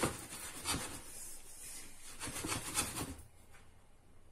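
A spatula stirring washed sesame seeds as they dry-toast in a nonstick frying pan. It makes a run of rustling, scraping strokes that stop near the end.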